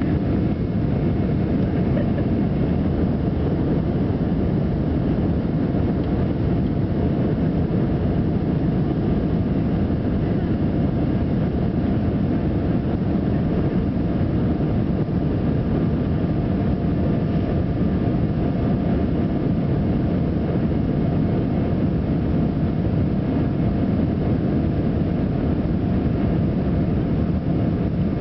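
Airbus A320 cabin noise in the climb after take-off: the twin jet engines and the air rushing past the fuselage make an unbroken, low, even rumble, with faint steady whining tones above it.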